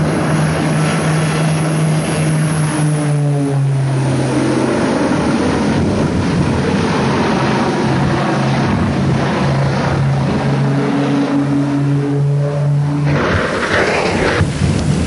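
Twin-engine propeller aircraft flying low, its engines running as a loud, steady drone that shifts in pitch as the plane passes and banks. About thirteen seconds in, the engine note cuts off and a rush of noise follows as the plane crashes.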